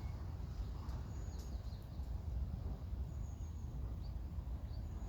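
Outdoor ambience: a steady low rumble with faint, scattered bird chirps, a few short high calls spread through it.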